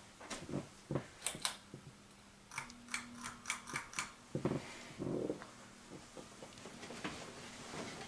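Ceiling fan pull-chain switches clicking and the chains rattling as they are pulled, with a couple of duller knocks. A steady low hum from the fan motor sets in as the blades start to turn.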